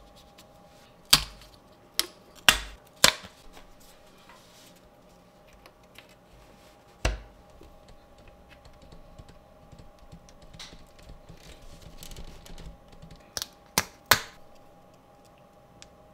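Thin laser-cut plywood model parts clacking sharply as they are set down on a table and pressed together: four clacks in the first few seconds, one near the middle and three near the end, with faint handling rustle between, over a faint steady hum.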